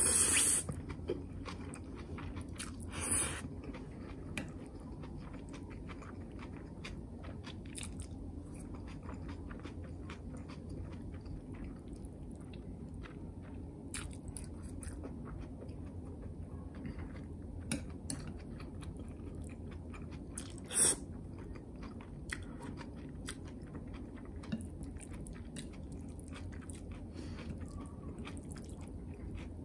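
Close-up sounds of someone eating spicy zucchini noodles, small biting and chewing sounds over a steady low hum. Three short, louder, noisy sounds stand out: one at the start, one about three seconds in and one about twenty-one seconds in.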